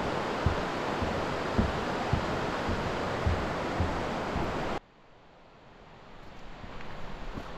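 Steady rush of a fast-flowing river, with footsteps on the trail about every half second. About five seconds in, the sound cuts off suddenly to a much quieter stretch where faint steps and rustling slowly grow louder.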